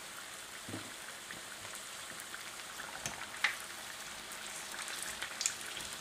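Lumpia deep-frying in a pot of oil: a steady sizzle with scattered small pops and crackles, and one louder pop about three and a half seconds in.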